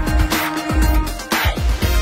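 Upbeat background music with a steady drum beat: kick-drum thumps about three times a second and a snare hit about once a second under held notes.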